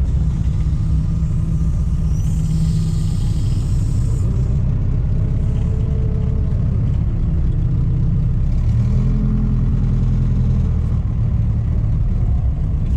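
Tractor engine running steadily under load while working branches. The pitch rises for a couple of seconds about nine seconds in, and a short hiss comes in about two and a half seconds in.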